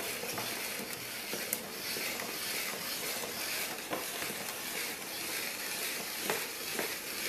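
Hand-cranked spiralizer cutting a zucchini into thin strands: a steady hiss of slicing with a few light clicks from the turning mechanism.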